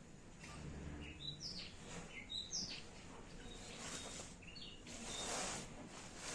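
Faint, repeated short high chirps of small birds, with a few hissing bursts of rustling noise, the loudest about five seconds in.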